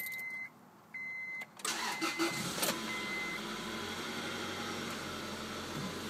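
A car's warning chime beeps about once a second, then the 1999 Acura Integra's B18B1 four-cylinder engine cranks and starts about two seconds in. It settles into a steady fast idle of about 1500 rpm from a cold start.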